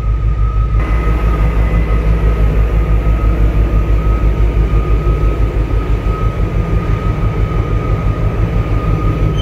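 Deep, steady machinery hum with a regular throb and a thin, steady high whine over it, from a docked container ship's diesel generator and the gantry cranes working overhead. A hiss comes in about a second in.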